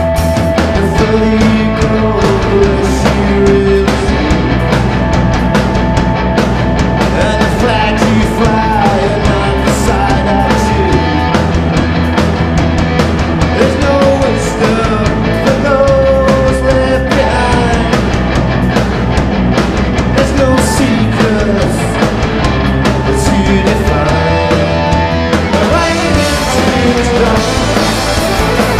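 Live rock band with fiddle, electric guitar, acoustic guitar and drum kit playing loud and without a break.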